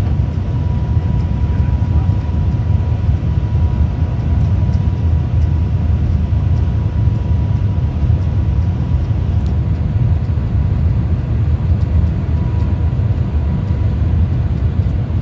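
Steady low rumble of a high-speed train running at speed, with a thin steady whine that fades out about halfway through.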